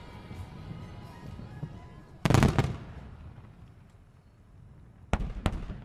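Aerial firework shells bursting: one loud burst about two seconds in, then two sharp bangs near the end, with music playing underneath.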